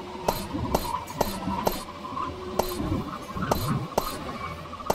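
Experimental electronic sound piece: sharp clicks about twice a second over a dense, shifting rumbling texture with a steady high hum running through it.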